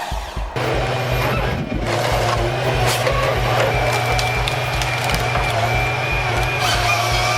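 A heavy tree-cutting machine running: a steady engine drone with a wavering whine over it, coming in sharply about half a second in.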